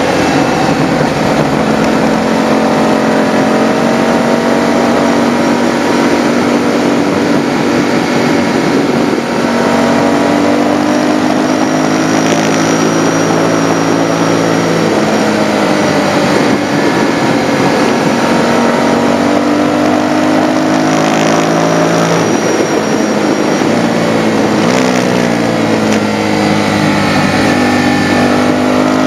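Motorcycle engine running under way, its pitch climbing under throttle and dropping back several times, over a steady rush of wind noise.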